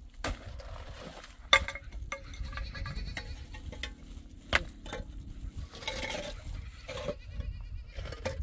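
Livestock bleating, with a few sharp knocks, the loudest about a second and a half in; the wavering calls come near the end.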